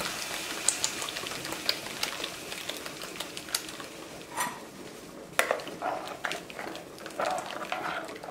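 Red chile sauce being strained through a plastic strainer into a pot of boiling pozole: a steady hiss of the boiling broth, with scattered sharp clicks and scrapes of a metal spoon against the strainer that grow busier in the second half.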